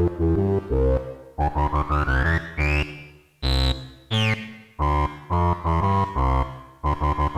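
Sequenced Moog Werkstatt analog synth bass line playing short repeated notes, its filter cutoff swept by LFOs so the tone brightens and darkens. A rising sweep builds over about a second and a half, and a high falling zap follows a little past the middle.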